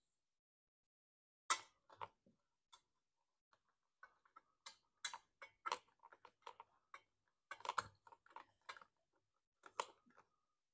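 Scattered light clicks and taps of a screwdriver and a plastic air filter housing against a small engine's carburetor and block, as the housing and its fiber intake adapter are worked into place. One sharper knock comes about a second and a half in, then a busier run of clicks.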